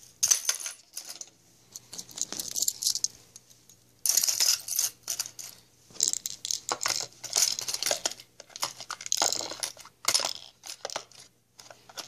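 Fishing lures and small tackle (spinnerbaits, hooks, snaps and swivels) clinking and rattling as they are put back into a tackle box, in irregular clusters of small clatters with short pauses between them.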